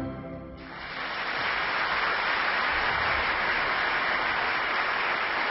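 The orchestra's last chord dies away. About half a second to a second in, a theatre audience starts applauding steadily.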